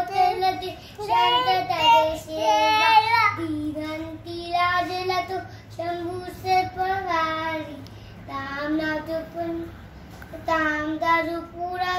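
A young boy singing a devotional song to Lord Ganesha, unaccompanied, in held, wavering phrases of a second or two with short breaths between them.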